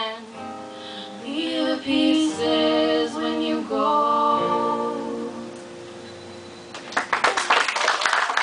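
Acoustic guitar and female voices holding the closing notes of a song, fading out, then an audience starting to clap near the end.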